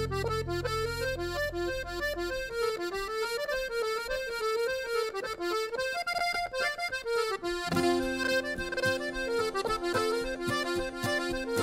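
Background music: a lively, fast traditional folk tune led by accordion. A low held drone underneath fades out about two seconds in, and a steady bass beat comes back in near eight seconds.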